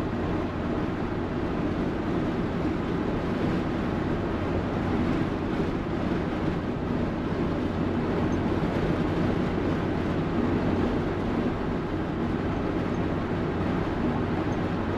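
1975 Chevrolet C20 pickup's engine chugging along steadily at cruise, heard from inside the cab with road and tyre noise, running well.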